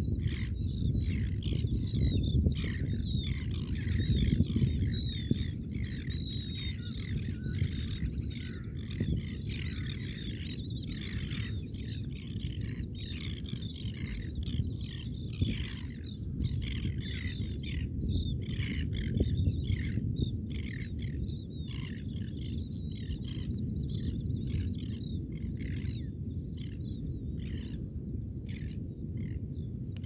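A large flock of seabirds calling continuously: many short, high, overlapping calls over a steady low rumble.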